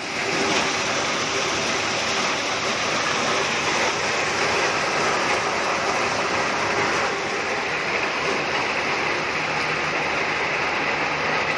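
Corn sheller that shells cobs still in their husks, running with a loud, steady, dense noise.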